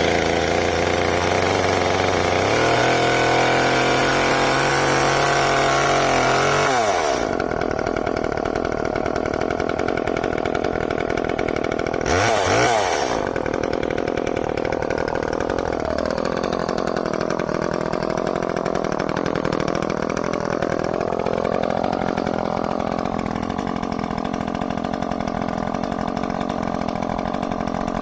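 Echo CS-305 30cc two-stroke chainsaw, just started, running fast for about seven seconds, then dropping to idle. It revs up and back down briefly about twelve seconds in, then idles with a slightly wavering pitch.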